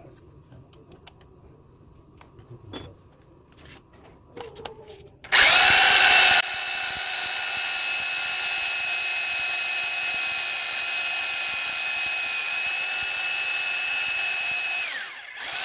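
A 900-watt corded electric drill boring a 10 mm hole in a wooden plank. After a few faint clicks it starts about five seconds in, very loud for the first second, then runs with a steady high whine for about nine seconds and winds down near the end. The cheap bit only gets through the wood under full pressure.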